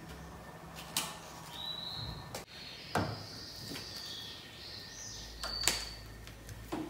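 A few sharp clicks and knocks, roughly two seconds apart, from objects being handled, with faint high chirps in between.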